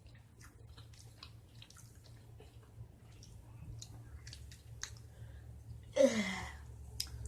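Close-miked eating sounds of buffalo wings being chewed: scattered small wet mouth clicks and smacks. About six seconds in comes one short, louder sound with a falling pitch.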